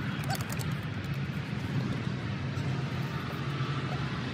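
A steady low mechanical drone, the kind a distant engine makes, with a few faint ticks about half a second in.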